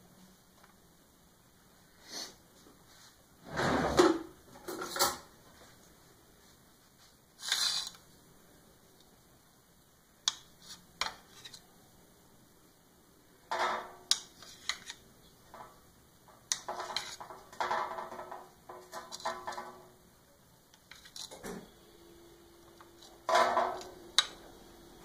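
Scattered kitchen handling noises: sharp clicks and scrapes of a knife against a ceramic plate while a ball of mozzarella is cut, along with short rustling and knocks from laying out food on baking paper.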